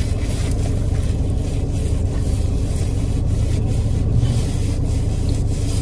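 Steady low rumble with faint, irregular soft clicks of someone chewing food.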